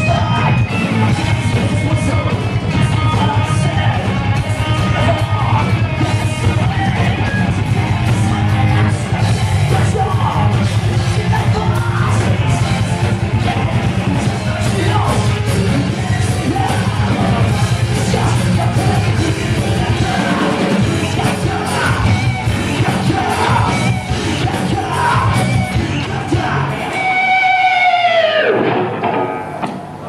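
Thrash metal band playing live: distorted electric guitars, bass guitar and drums with yelled vocals. Near the end the bass and drums drop out and one long falling note slides down as the song ends.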